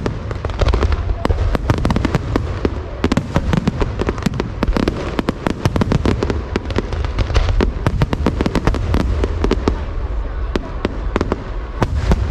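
Aerial fireworks going off in a dense barrage: many sharp bangs and crackles in quick succession over a continuous low boom.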